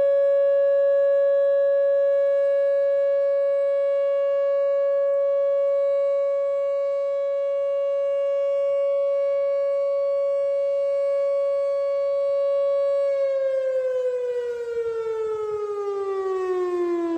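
Whelen WPS 2910 electronic outdoor warning siren sounding the steady alert signal during a test: one loud, unwavering tone. Near the end the pitch starts gliding steadily down as the signal winds down.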